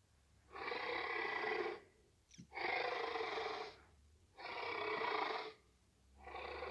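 T-Rex sound effect: a large creature breathing slowly and heavily, with four long brey breaths each a little over a second long, evenly spaced about two seconds apart. A faint tick comes between the first two.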